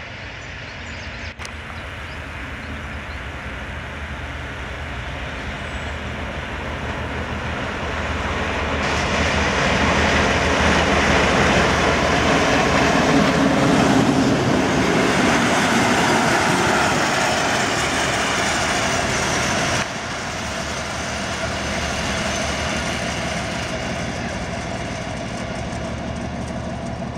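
Ganz-built Árpád railbus running on its diesel engine as it approaches and passes close by, the engine and wheels on the rails growing steadily louder to a peak about halfway through. After a sudden cut about two-thirds of the way in, its engine is heard running more quietly.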